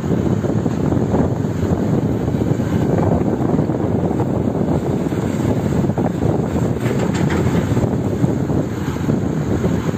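Heavy diesel machinery running steadily: the engine of an XCMG XR180D rotary drilling rig at work lifting its drill tool, with a nearby excavator, giving a continuous low drone.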